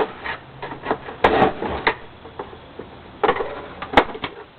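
Hard plastic clicks and clatters as the housing parts of a Hoover Elite upright vacuum's power head are handled and pried apart: several scattered knocks, the sharpest click about four seconds in.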